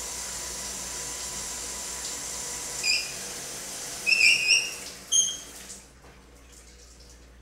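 Shower spray hissing steadily behind the curtain. Three short high-pitched squeals come from the shower plumbing, and then the spray cuts off near the end.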